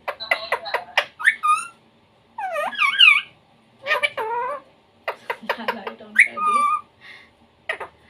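Indian ringneck parakeet chattering in about five short bursts of speech-like mimicry mixed with squeaky gliding notes and clicks, with brief pauses between them.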